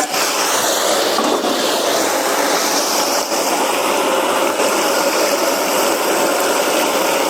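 A wok full of chili and bean-paste hot pot base frying in hot fat, sizzling loudly and steadily.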